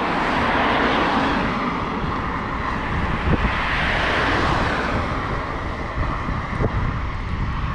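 Wind rushing over the microphone and tyre rumble from a bicycle rolling on asphalt, with road traffic noise that swells in the middle.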